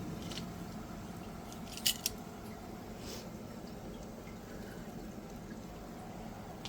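A few light clicks and taps from handling the food and utensils at the electric pizza oven, the loudest pair about two seconds in, over a steady low hum.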